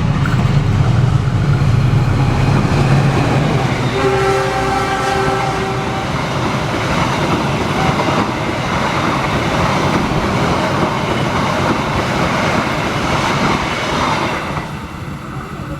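Diesel-hauled passenger train passing close by: the locomotive's engine rumbles, its horn sounds for about two seconds starting about four seconds in, then the coaches rattle over the rails until the noise falls away near the end.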